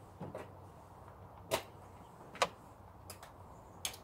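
Hand tools being picked up and handled: about five separate sharp clicks and knocks of metal tools and sockets, the loudest about one and a half and two and a half seconds in, over a faint steady hum.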